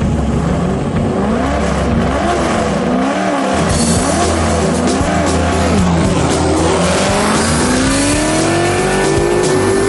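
Race car engine revving up and down in quick swings, then pulling one long steady climb in pitch under acceleration, with a drop near the end like a gear change; music plays underneath.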